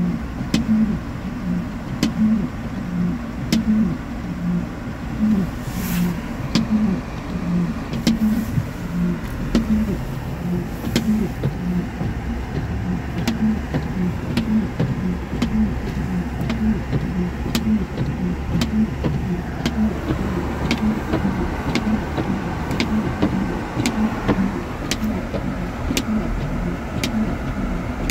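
Inside a car in snow: a steady, even tick-tock about three times every two seconds over the low hum of the engine and tyres.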